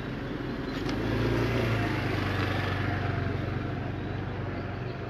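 A car engine idling close by, a steady low hum that swells a little about a second in.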